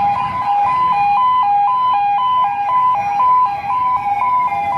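Police vehicle siren sounding a steady two-tone hi-lo pattern, alternating between a higher and a lower note about twice a second, with a fainter lower tone gliding down near the end.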